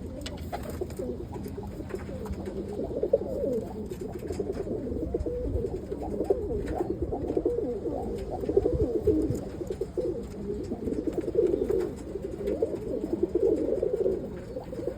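Many roller pigeons cooing at once in a loft, the low warbling coos overlapping without a break: cock pigeons calling as they court, with a few faint taps among them.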